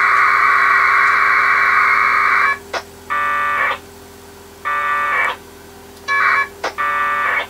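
1200-baud AFSK packet radio data bursts from a Winlink session sending an e-mail: a long burst of about two and a half seconds, then four shorter bursts with short quiet gaps and faint clicks between them.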